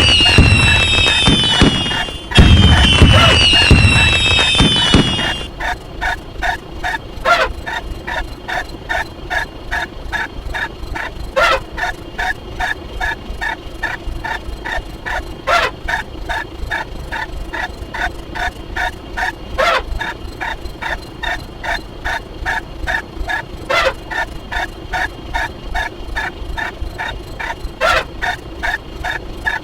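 Two loud bursts of a sound effect, each a cluster of high tones sliding downward in pitch, ending about five seconds in. After that comes a steady rhythmic ticking, a few ticks a second, with a stronger click about every four seconds.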